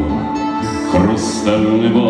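Live solo steel-string acoustic guitar playing between sung lines; the man's voice comes back in with the next line in the second half.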